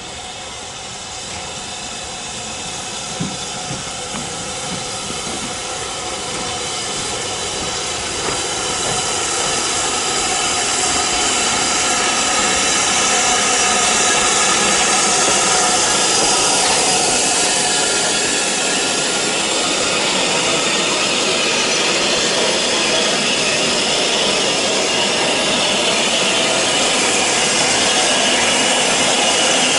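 Steam hissing steadily from BR Standard Class 5 steam locomotive 73082 'Camelot', growing louder over the first dozen seconds and then holding steady.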